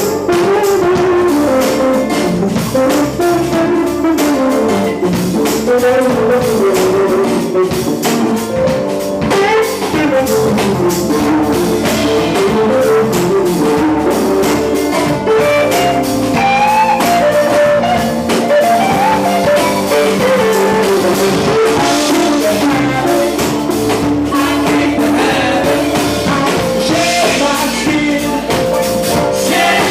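Live band playing an instrumental stretch with guitar and drum kit, a melodic lead line sliding up and down over the beat.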